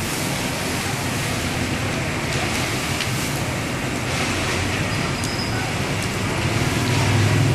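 Car fire burning: a steady noise of flames with a few sharp pops, over a low engine hum that gets louder near the end.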